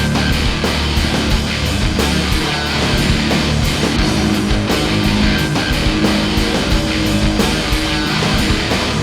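Loud rock music with distorted electric guitar and a steady drum beat.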